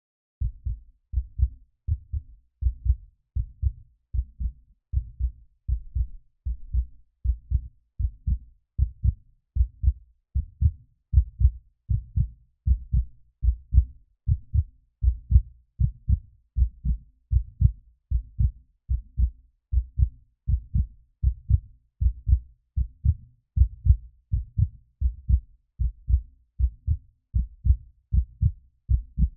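Heartbeat: a steady lub-dub of paired low thuds, about 80 beats a minute.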